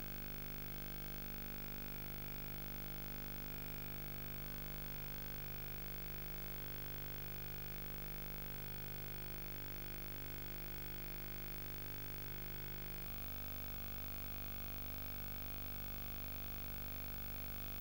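Steady electrical hum and hiss from a videotape transfer with no programme sound. The hum changes abruptly about thirteen seconds in.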